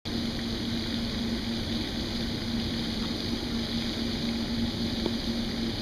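Garden pond fountain spraying water, a steady splashing hiss with a constant low hum underneath.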